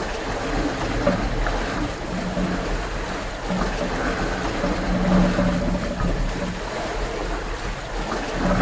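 Wind buffeting the microphone and water rushing past the hull of a sailboat under sail, a steady rushing noise with a low rumble.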